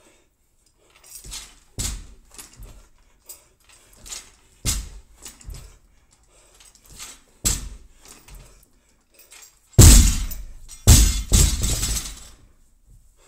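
Barbell with rubber bumper plates hitting the gym floor about every three seconds between ground-to-overhead reps, then dropped from overhead near the end with a loud crash and a few rattling bounces. Hard breathing in between.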